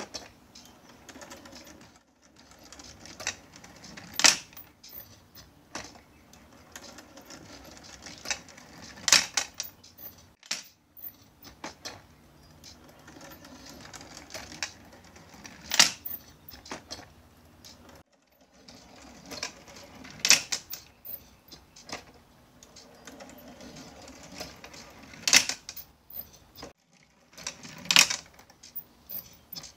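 Marble-run automaton running: its gear-motor-driven auger and linkage turn with a steady low rattle, while glass marbles clack sharply against each other and the metal parts every four to six seconds as they roll down and queue at the foot of the auger.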